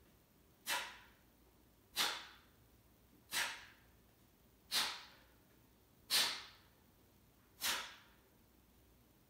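A man breathing out sharply six times, about once every second and a half, one forceful exhalation with each push-up.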